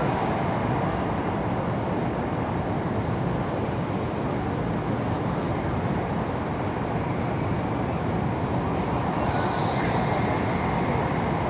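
Steady running rumble of a Taiwan High Speed Rail train moving at speed, an even roar with no breaks, with a faint high whine in the later part.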